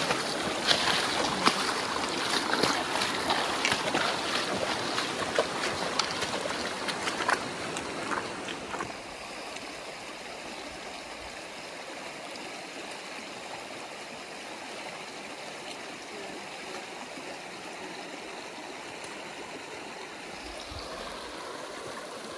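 Rushing water of a shallow mountain river, with feet splashing through it as someone wades across; about nine seconds in this gives way to a quieter, steady flow of a smaller creek.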